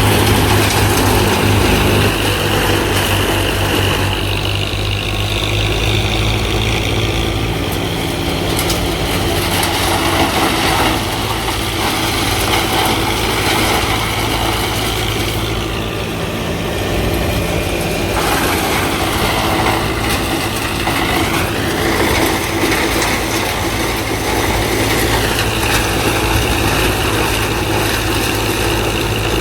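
A JCB 5CX backhoe loader's diesel engine runs steadily while it works. A higher whine dips and rises in pitch several times.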